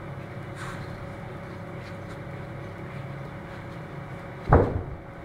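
Steady machinery hum with a faint steady tone running through it, broken by one sharp, loud thud about four and a half seconds in.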